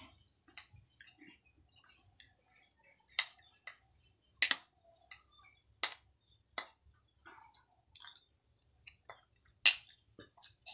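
Metal spoon and fork clinking and scraping against a metal wok while eating from it: about five sharp clinks, the loudest near the end, among soft crackling chewing and mouth sounds.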